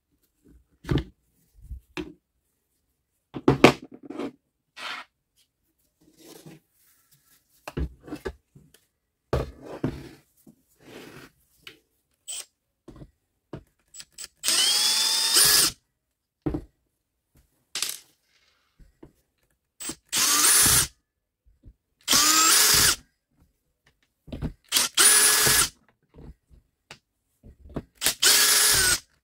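Cordless drill/driver running in five short bursts of about a second each, its motor whine rising as each starts, backing screws out of a Milwaukee M18 circular saw's plastic housing. Before the first burst, scattered clicks and knocks of tools and parts being handled.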